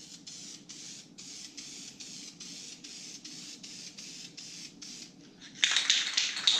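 Aerosol spray paint can hissing in short spurts, about three a second. About five and a half seconds in, it gives way to a louder, rapid rattling as the can is shaken, its mixing ball clacking inside.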